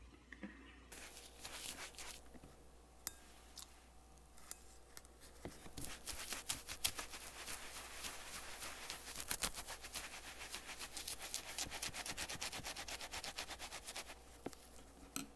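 Makeup brush scrubbed through foamy cleansing gel over the textured rubber of a Real Techniques Brush Cleansing Palette: a run of quick scratchy rubbing strokes with brief pauses in the first few seconds, stopping near the end.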